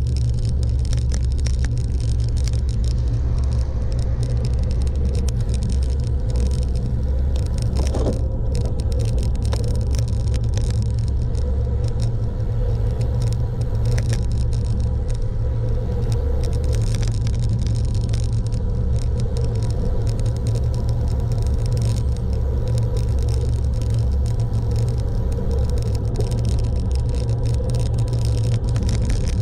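Steady rumble of a road vehicle on the move, engine and road noise running without a break.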